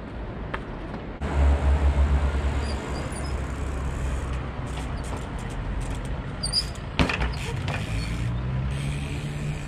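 A heavy road vehicle's engine runs with a low rumble that starts suddenly about a second in and carries on. About seven seconds in, one sharp thump is heard as a trial bike lands on the pavement after dropping off a stone pillar.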